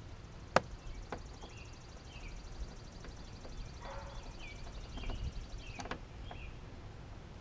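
Birds chirping now and then over a low outdoor rumble, with a sharp click about half a second in and a few fainter clicks. A high, rapid, even ticking runs through the middle and stops about six seconds in.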